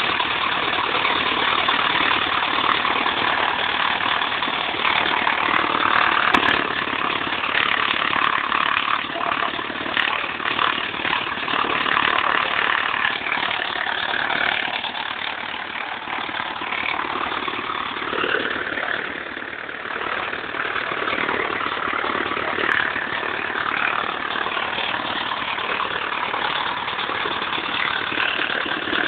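A light aircraft's piston engine running steadily at low power.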